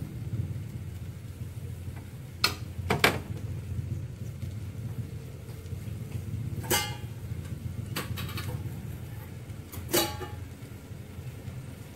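Chili paste frying in oil in a stainless steel pot on a gas stove, with a steady low rumble. Several sharp clinks and knocks of utensils against the pot break in, two close together about two and a half seconds in and single ones later.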